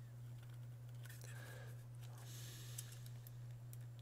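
Faint clicks and scraping of a drone remote controller's plastic shell being pried apart by hand, over a steady low hum.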